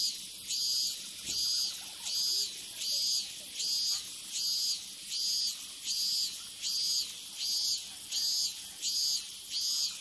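Cicada singing: a high buzz repeated in even pulses, about three every two seconds.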